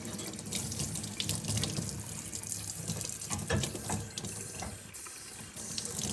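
Tap water running into a sink as it is flushed through a dishwasher silverware-rack spray head to wash gunk out of its blocked nozzles. A few light knocks and clicks sound over the steady splashing.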